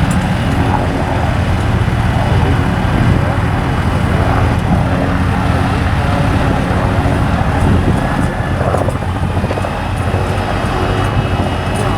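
Tractor engine running steadily, a low, even drone.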